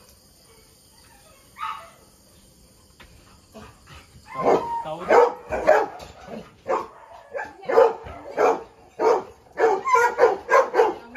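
A dog barking repeatedly: a string of barks that starts about four seconds in and keeps going.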